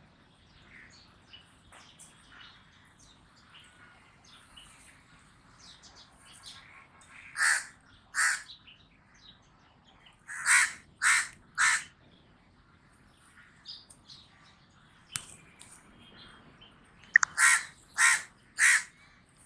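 Common raven calling in short calls that come in clusters: two about seven and a half seconds in, three about ten to twelve seconds in, and four more near the end, with faint calls in between.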